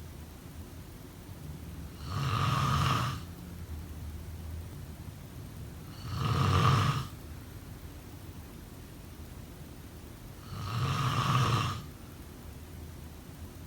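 A person snoring in a slow, regular rhythm: three loud snores, each lasting about a second, spaced about four seconds apart.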